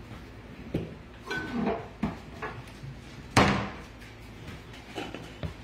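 Kitchen handling sounds: a few light knocks and clicks, with one sharp clunk about three and a half seconds in.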